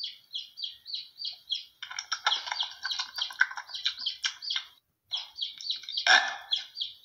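Bird chirping: a rapid series of short, falling chirps, about three a second, with a brief pause about two-thirds of the way through.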